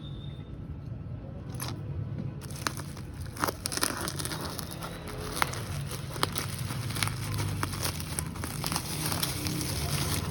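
Packaging crinkling and tearing as the set is unwrapped, with many sharp crackles, starting about two seconds in.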